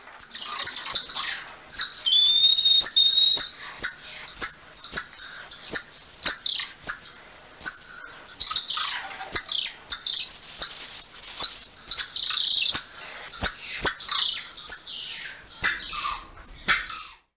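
Golden lion tamarin calling: a rapid series of high-pitched chirps and whistles mixed with sharp clicks, including two longer held whistles, one about two seconds in and one about ten seconds in.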